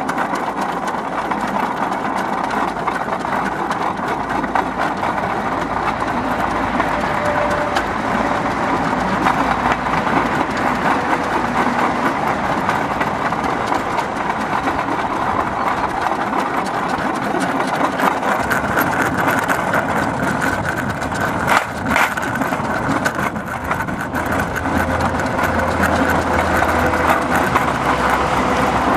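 Homemade railbike, a bicycle with wheel guiders and a double-wheel outrigger, rolling along steel rails: a steady rumble and rattle of its wheels on the track, with one sharp knock about three quarters of the way through.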